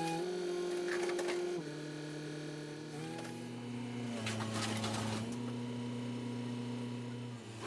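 Excavator engine and hydraulics running under load, a whine that steps up and down in pitch as the controls are worked, with short rattling clanks about a second in, midway and near the end.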